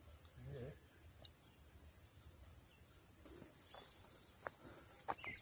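Cicadas droning steadily in a high pitch, growing louder about three seconds in, with a few faint clicks.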